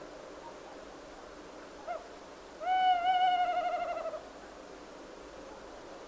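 Owl hooting: a short hoot about two seconds in, then a long wavering hoot of about a second and a half that sinks slightly in pitch, over a faint steady hiss.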